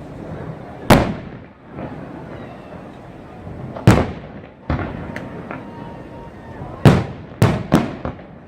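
Fireworks bursting: loud sharp bangs at uneven intervals, each trailing off, with three coming in quick succession near the end.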